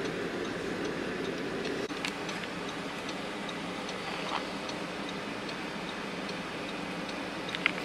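A car's indicator ticking steadily inside the cabin over a low, steady engine hum.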